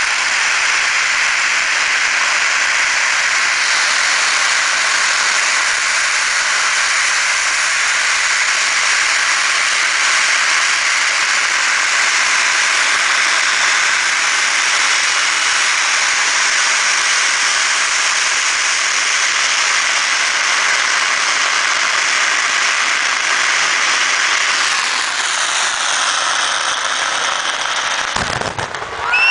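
A giant string of about 10.8 million firecrackers going off, the bangs so dense that they merge into one continuous crackle. It dips briefly near the end.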